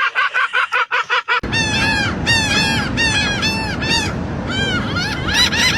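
Gulls calling: a fast run of short repeated notes, then a series of loud arching calls, about two a second, over a steady rush of wind or surf.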